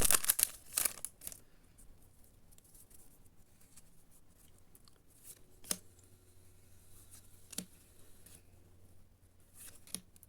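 Crinkling of a trading-card booster pack's wrapper for about the first second, then a few soft, separate clicks and taps as the Yu-Gi-Oh cards are handled.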